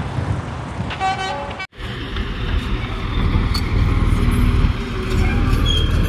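Steady low rumble of vehicle traffic with a short vehicle horn toot about a second in. A brief dropout follows, then the rumble comes back louder.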